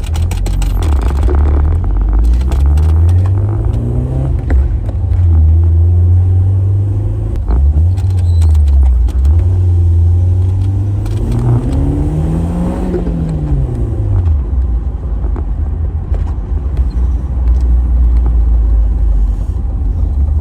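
Car engine revving up and dropping back several times as the car is driven hard, with one higher rev that climbs and falls away about two-thirds of the way through, then settling into a steady low drone.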